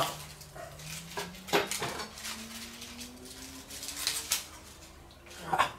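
A few separate knocks and clinks of a knife and metal utensils as a hot grilled corn cob is cut and handled, over a faint hum that slowly rises in pitch.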